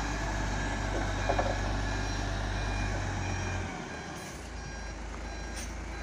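SANY concrete mixer truck's engine running while its reversing alarm beeps steadily.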